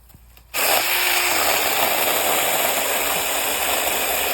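Taranzy 6-inch cordless mini chainsaw running, starting abruptly about half a second in and then holding a steady, loud electric whirr of motor and chain.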